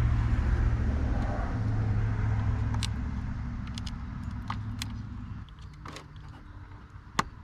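Low rumble of a motor vehicle running, which drops away about five and a half seconds in, with scattered light clicks and one sharper click near the end.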